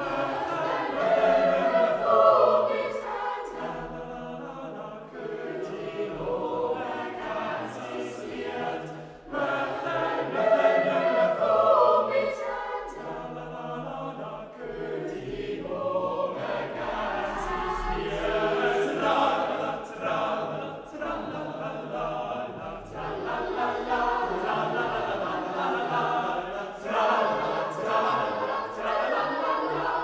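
Boys' choir of trebles with older boys' lower voices singing an a cappella arrangement of a Swiss folk song, phrase after phrase swelling and easing in loudness.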